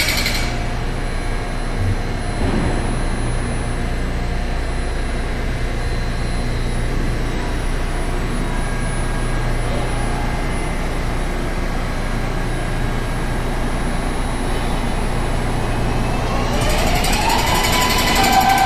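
Steady low hum of a MARTA subway train standing at the platform. About two seconds from the end, a rising whine and hiss as the train starts to pull away.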